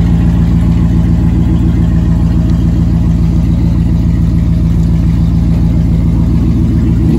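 Ram pickup truck's engine idling loud and steady, close by.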